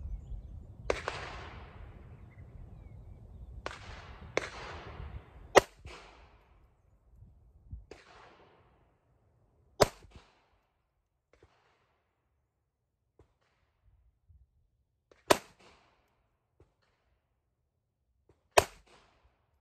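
Ruger LCP II .22 LR pocket pistol fired slowly, single shots one to five seconds apart, about eight in all; the last four are the loudest and sharpest, with the longest gaps between them.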